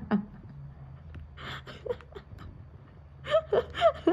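A low steady hum, then near the end several short, high-pitched voice sounds, each rising and falling in pitch.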